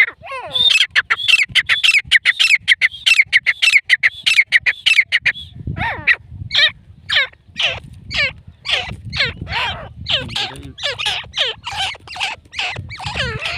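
Grey francolin calling: a fast run of sharp, high, repeated calls for about five seconds, then a slower series of separate calls at about two a second.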